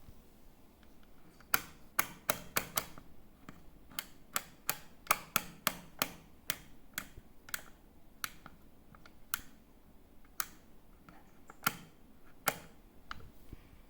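Sharp plastic clicks from a washing machine's control panel being worked: about twenty single clicks, irregularly spaced, some in quick runs.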